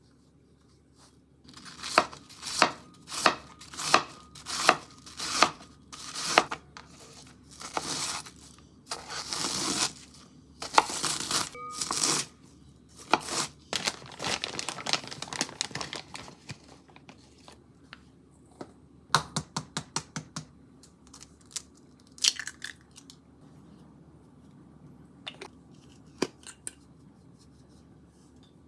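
Food packaging crinkling and tearing in a run of sharp rustles, then a flour bag rustling as a cup of flour is measured out. Scattered light clicks and taps follow in the second half.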